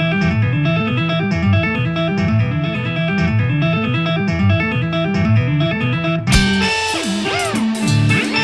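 Music with a plucked guitar part over a steady low rhythm. About six seconds in it changes abruptly to a different passage with swooping, gliding tones.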